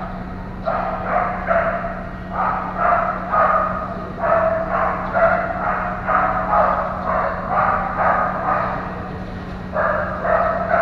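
A dog barking over and over, about two barks a second, with a short pause near the end. A steady low hum runs beneath it.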